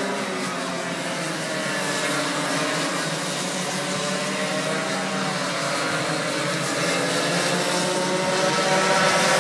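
Several racing karts' small two-stroke engines buzzing together, their pitches rising and falling as they work through the corners. The sound grows gradually louder toward the end as the pack comes closer.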